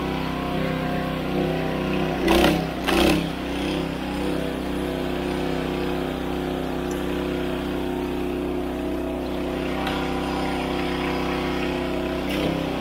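An engine running steadily at a constant speed, with two short loud noises about two and three seconds in.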